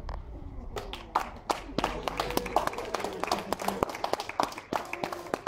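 A small group of onlookers clapping, a spell of dense, irregular claps, with voices mixed in.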